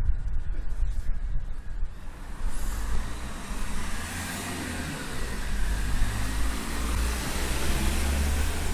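A car passing by: tyre and engine noise swells from about three seconds in, over a steady low rumble.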